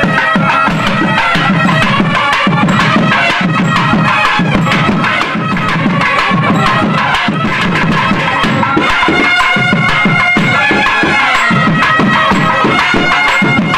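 Nadaswaram reed horns playing a sustained, wailing melody over thavil drums beaten in a dense, steady rhythm: a South Indian periya melam temple ensemble.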